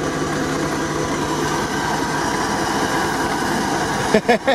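GAZ-69 off-roader's engine idling steadily. A voice comes in briefly near the end.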